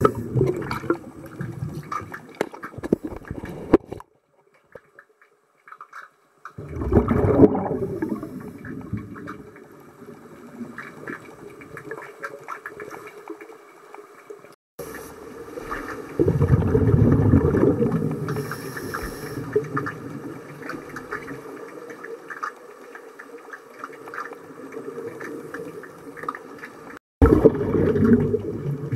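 Underwater pool sound picked up through a camera's sealed housing: muffled water noise with surging bursts of bubbling and gurgling from scuba divers' exhaled air. It cuts off abruptly three times, at about 4 s, midway and near the end.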